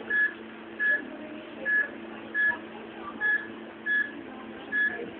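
Bedside patient monitor beeping with the heartbeat: a short high tone of one pitch seven times, a little under a second apart and slightly uneven, over a steady low hum.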